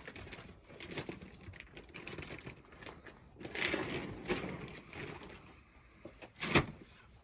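A one-month-old Alaskan malamute–husky cross puppy making soft low grunts and coo-like whimpers, with cloth rustling. A single sharp knock comes near the end.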